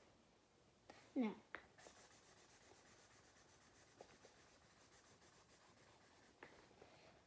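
Faint scratching of a pen writing on paper, with a few light taps. About a second in there is a short falling vocal sound from the writer.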